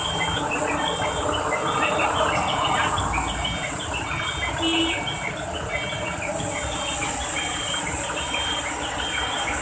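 High, short chirps repeating many times over a steady rushing outdoor background.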